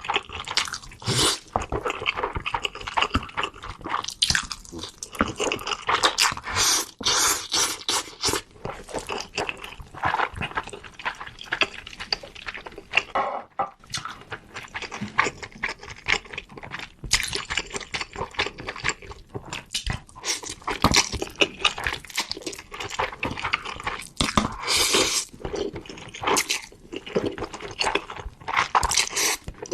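Close-up eating of spicy Korean noodles: wet slurping and chewing with sticky mouth clicks, irregular throughout, with a short lull about halfway.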